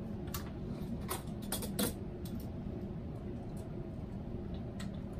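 A few light clicks and taps as a plastic ring light is handled and screwed onto a tripod mount, mostly in the first two seconds with one more near the end, over a steady low background hum.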